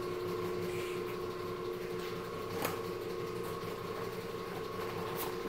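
Steady machine hum with a few held tones, and a couple of faint ticks.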